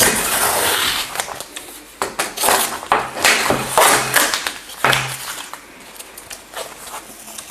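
Stacked paper and cardboard layers inside a Qi charging pad being torn and scraped apart, with a long rasp at first and then several separate ripping scrapes that trail off.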